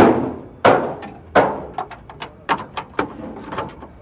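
Metal bangs and knocks from work on a rusty GMC truck's bonnet: three loud bangs in the first second and a half, then a quicker run of lighter knocks.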